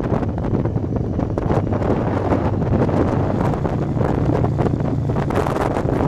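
Wind buffeting the microphone of a vehicle moving at road speed, a steady rushing noise with a low engine drone underneath.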